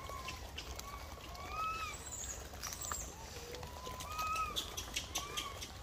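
Short arched calls, each rising and falling in pitch, repeating several times a second at a few different pitches, as from more than one animal, with scattered faint clicks.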